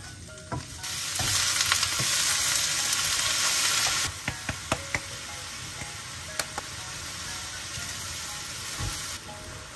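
Cabbage, zucchini, carrot and seafood sizzling in a nonstick wok as they are stir-fried with a spatula. The sizzle flares loud about a second in and stays loud for about three seconds, then settles to a steadier, quieter sizzle, with a few sharp clicks of the spatula against the pan.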